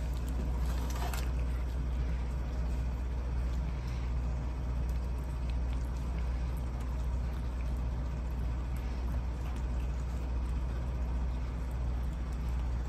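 A steady low hum, with a few faint clicks of kittens eating wet food from a metal dish.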